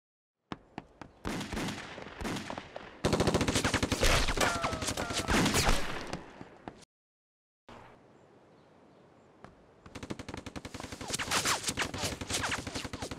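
Staged gunfight: a few single shots, then dense, rapid gunfire from shotguns and pistols. The firing breaks off about seven seconds in and starts again a few seconds later.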